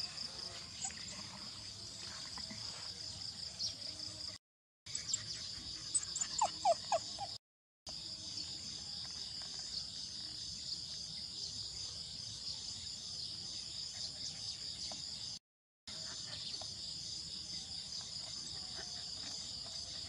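Steady high-pitched pulsing chorus of insects in the background. A few short, louder rising calls come about six seconds in, and the sound drops out to silence at three brief cuts.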